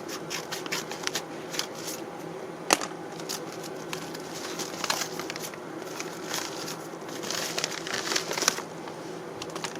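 Packaging being opened and handled by hand: irregular rustling and crinkling with scattered clicks, and one sharp snap a little under three seconds in.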